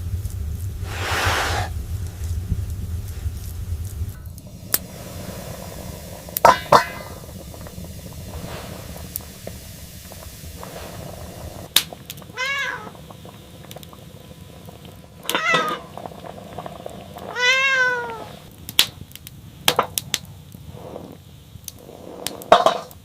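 An animal calling three times, short high calls that each rise and fall in pitch, among scattered knocks and clicks.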